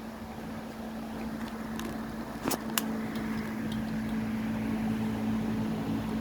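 A steady small-motor hum with two sharp clicks, a fraction of a second apart, about two and a half seconds in.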